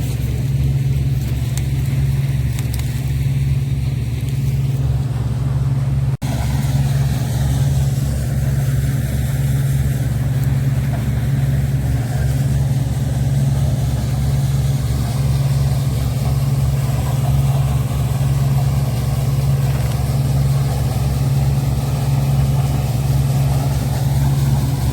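CLAAS Dominator combine harvester running steadily while harvesting corn: a constant low engine drone with a mechanical rumble, broken by a momentary drop-out about six seconds in.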